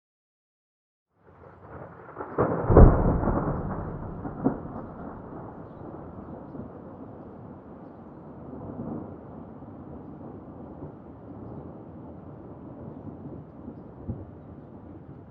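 Thunder: about a second of silence, then a rumble builds into a loud clap about three seconds in, followed by a long rolling rumble that slowly fades.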